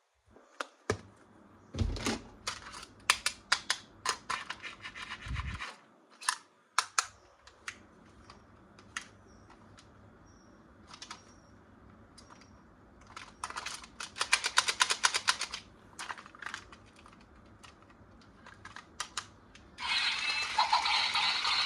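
Hands unboxing a toy: sharp clicks and taps with stretches of crinkling and scraping of plastic and cardboard packaging. Near the end a louder, steadier sound comes in.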